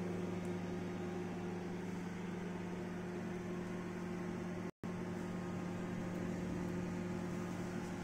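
Steady low electrical hum of a kitchen appliance, with no other events. It cuts out for an instant about halfway through.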